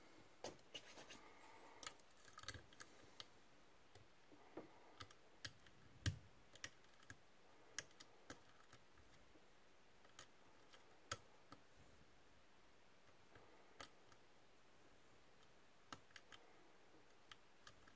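Faint, irregular small clicks and light scratching of a lock pick and tension wrench working the pins inside a Medeco M3 lock, the loudest clicks about 6 and 11 seconds in.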